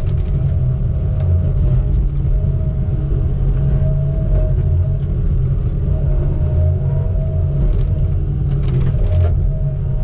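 Heavy logging machine's diesel engine running steadily: a loud, even, low rumble with a steady higher tone over it, and a few light clicks near the end.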